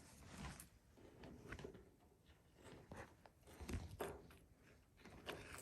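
Faint, scattered scraping and clicking of a thin wire hook probing a clogged furnace condensate drain, working at a soft lump of debris that blocks the water.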